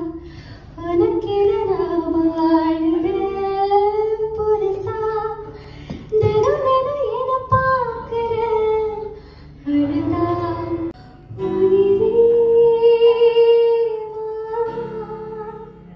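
A woman singing a slow song into a handheld microphone, in long held, gliding phrases with a couple of short breaks near the middle. An electronic keyboard accompanies her softly.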